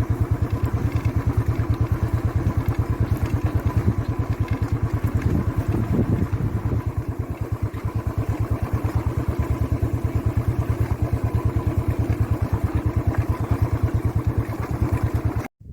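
Motorcycle engine running at a steady speed with a fast, even thudding beat that holds unchanged throughout, then cuts off abruptly just before the end.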